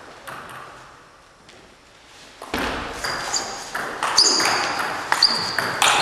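Table tennis rally: the ball clicking sharply off the paddles and the table in quick succession, two or three hits a second, beginning about two and a half seconds in after a quieter lead-in with a few light taps.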